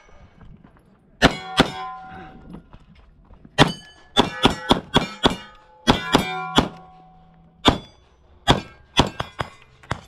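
A 9mm Glock pistol firing quick strings of shots at steel targets, the hit plates ringing after the reports. About twenty sharp shots come in bursts of two to six with short pauses between.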